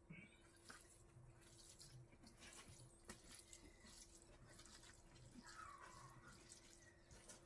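Faint wet squishing and dripping of cooked rice being mixed with rasam by hand on a banana leaf, in small scattered ticks, over a faint steady hum.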